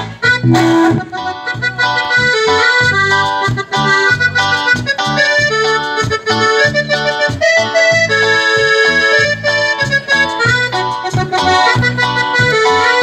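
Cumbia played live on an electronic keyboard through a PA speaker: a melody of held notes over a steady, even beat.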